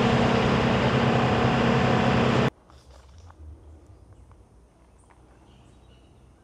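Bus engine and road noise heard from inside the bus, a steady drone that cuts off abruptly about two and a half seconds in, leaving only a faint, quiet background.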